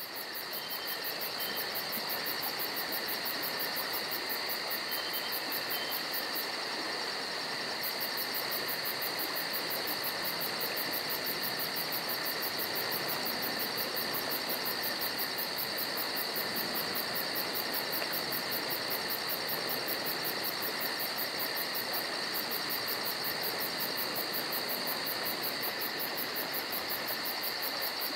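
Steady high-pitched insect chirring, like a cricket chorus: a continuous trill with a fast, even pulse.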